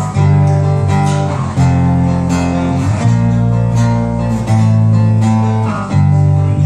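Acoustic guitar strummed in an instrumental passage between sung lines, a new chord struck about every one and a half seconds.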